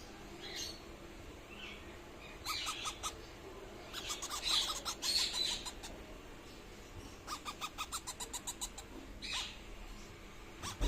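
Indian ringneck parrots making bouts of short, rapid chirps, about ten a second, repeated several times.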